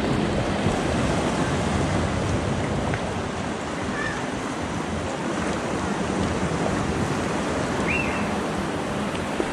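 Sea waves washing against rocks along the harbour shore: a steady rushing noise.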